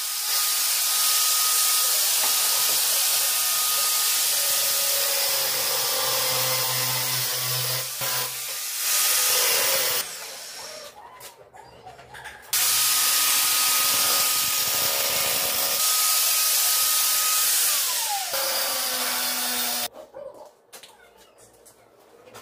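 High-speed electric power tool running in long bursts, a steady whine over loud hissing noise. It starts and stops a few times, and in the last burst the whine falls in pitch as the motor winds down before it cuts off.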